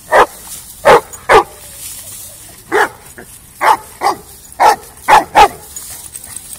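A dog barking in play, about nine short, sharp barks in quick, uneven bunches.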